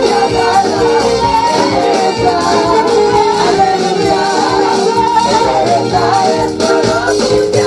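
Loud African gospel praise music: amplified band with voices singing and a steady beat, tambourine among the percussion.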